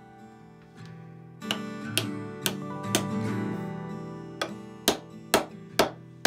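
Acoustic guitar background music, with sharp hammer blows about twice a second from about a second and a half in: a hammer striking the end of the wooden axe handle to seat the axe head.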